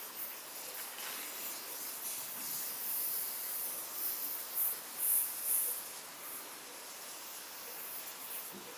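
Fine jet of pressurised Coca-Cola hissing out of a pinhole leak in an aluminium can, a thin, high hiss that swells and fades, loudest in the middle. The leak is too small to see and is typical of cans stored well past their best-before date.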